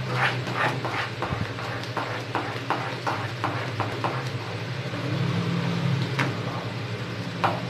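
Wooden spatula stirring loose semolina kesari in a nonstick pan, knocking and scraping against the pan about two or three times a second, with a short pause past the middle. A steady low hum runs underneath.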